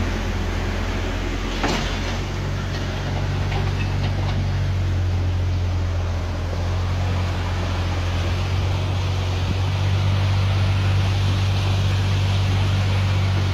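An engine runs steadily with a low hum, with a single sharp knock about two seconds in.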